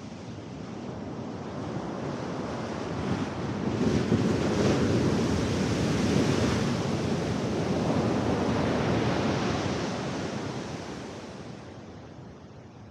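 Large surf wave crashing on the shore. The rush builds, breaks suddenly about four seconds in, keeps going for several seconds as the whitewater surges, then dies away near the end.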